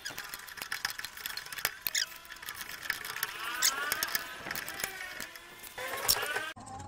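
Homemade motorcycle-sprocket jack being cranked with its lever under load: a rapid run of metallic clicks from the ratchet on the sprocket teeth, with squeaks and squeals of metal that rise and fall in pitch.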